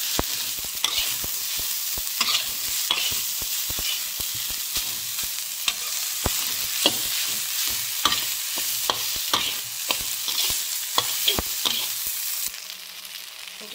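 Fried rice sizzling in a wok while a metal spatula stirs and scrapes it, with frequent sharp clicks of the spatula against the pan. The sizzle drops away near the end.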